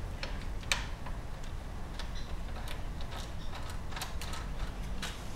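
Scattered light clicks and taps as hands press and seat the plastic-cased modules of a Toyota Prius high-voltage battery pack back into line.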